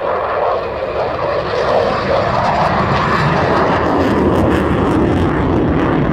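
Aermacchi MB-339 jet aircraft flying a display overhead, their engines a loud, steady rushing noise that deepens about three seconds in.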